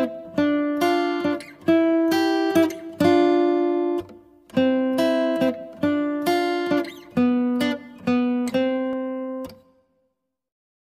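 Solo plucked-string instrumental music, like an acoustic guitar: a slow melody of single plucked notes and chords, each ringing and fading. It stops about nine and a half seconds in.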